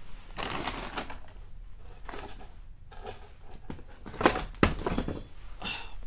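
Rummaging through a box of small tools and parts: scattered clicks, light rattles and rustling, with a few sharper clicks about four seconds in.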